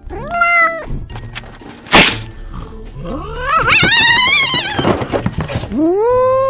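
Cartoon sound effects: a wooden spring mousetrap snaps shut with a sharp crack about two seconds in, the loudest sound here, followed by a long wavering yowl of pain from the cat and then another drawn-out cry that rises, holds and falls. A short cry comes just before the snap.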